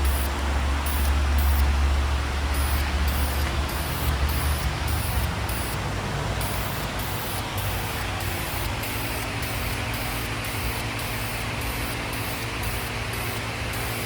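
Steady spraying hiss over a low mechanical hum; the hum is strongest for the first few seconds and then eases off while the hiss carries on.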